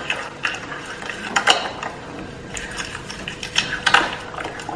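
A utensil stirring a thick mix of canned soups and onion soup mix in a glass mixing bowl, knocking and scraping against the glass in irregular clinks.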